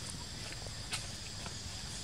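Steady low outdoor background noise, with one faint click about a second in.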